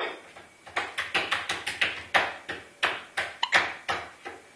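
A quick, uneven run of sharp taps on a hard surface, about a dozen in three and a half seconds, starting just under a second in.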